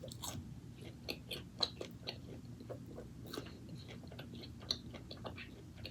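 A person chewing a mouthful of food close to the microphone, with a string of small, irregular wet mouth clicks and smacks.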